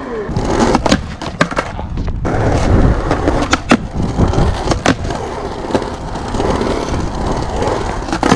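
Skateboard wheels rolling over smooth concrete, with several sharp clacks of the board hitting the ground in the first few seconds.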